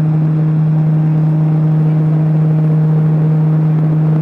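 Large electric fan running at maximum speed: a loud, steady motor hum with overtones over the rush of moving air.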